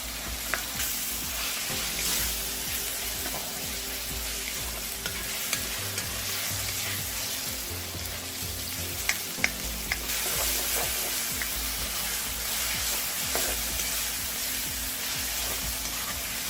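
Onion, garlic, pimento peppers and green seasoning sizzling steadily in hot oil in a karahi, with a few sharp clicks of the stirring spoon against the pot.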